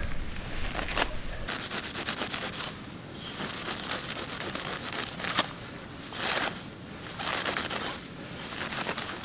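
A knife cutting through clumps of tall grass: crisp tearing and crackling strokes that come in several short bursts, with the grass rustling.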